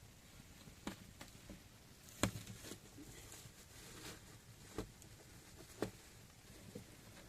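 Irregular light knocks and taps, about seven, spread over several seconds, the loudest a little over two seconds in, over a quiet background.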